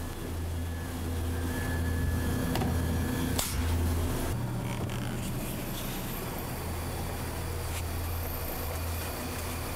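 A steady low mechanical hum of kitchen machinery, with a single sharp click about three and a half seconds in.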